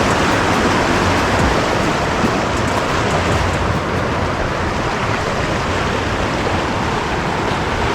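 Steady rush of a fast-flowing river running high after heavy rain.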